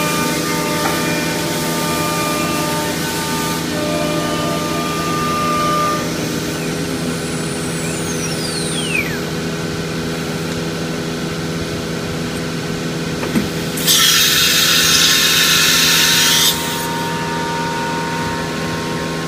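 CNC router spindle running and carving MDF door panels, a steady machine hum made of several tones, with a falling whistle near the middle. For about two and a half seconds late on, a much louder hiss rises over it, then cuts off suddenly.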